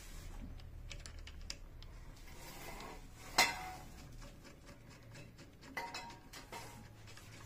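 Small clicks and knocks of hard plastic and metal parts being handled as the grips and bolt of an Airvam PCP hand pump's T-handle are fitted together, with one sharper clack and a brief ring about three and a half seconds in.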